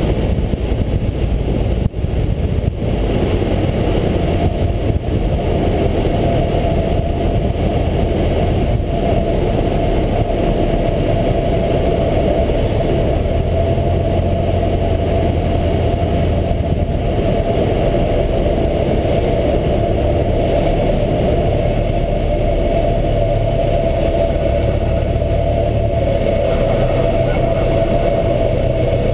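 Light single-engine propeller airplane's engine and propeller running steadily, heard inside the cockpit with rushing air noise, through final approach and touchdown. A thin steady whine joins a few seconds in and holds on.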